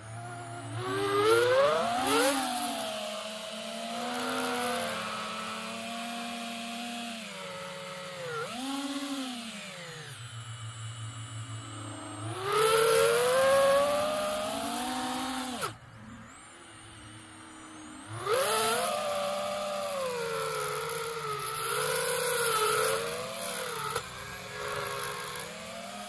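AOS 5 FPV quadcopter's brushless motors and propellers whining, the pitch rising and falling with the throttle. The loudest surges come about a second in, a little before the middle and about two-thirds through, with the pitch dropping away between them.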